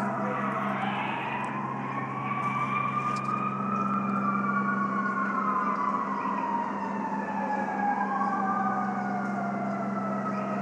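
Fire engine siren wailing, its pitch rising slowly over about four seconds and falling back, starting to rise again near the end. A steady low hum runs underneath.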